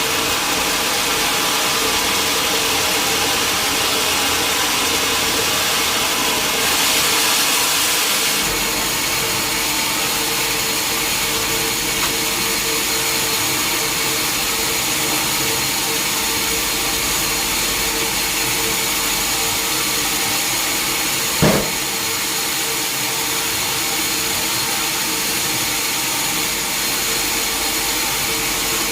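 Sawmill sawing machinery running steadily with a constant hum and noise, with a louder, hissier stretch for about two seconds around seven seconds in and a single sharp knock about two-thirds of the way through.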